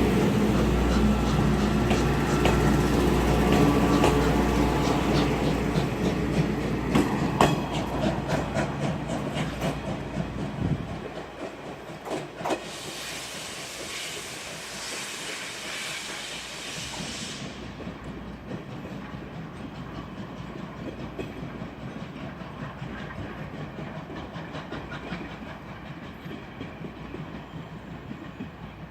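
A steam train hauled by a JNR Class 8620 steam locomotive, 58654, running away, its wheels clacking over rail joints. The sound fades over the first ten seconds or so, then stays much quieter and steady.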